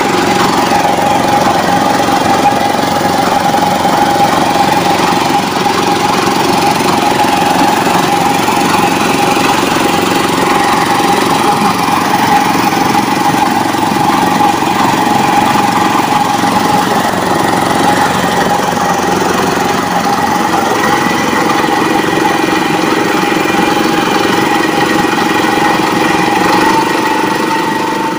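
Small single-cylinder air-cooled petrol engine of a walk-behind power tiller running steadily under load as its rotary tines churn thick wet clay mud, its pitch lifting slightly near the end.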